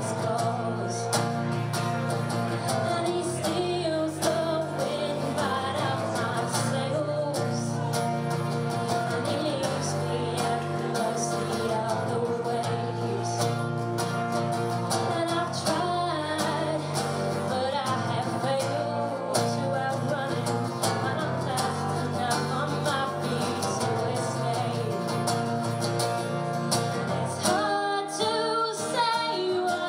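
Live acoustic song: a strummed acoustic guitar with a woman singing lead, amplified through a stage PA. The accompaniment changes character near the end.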